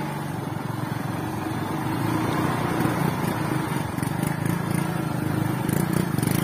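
Small motorcycle engine running steadily at low speed on a muddy dirt track, with a rapid even pulsing.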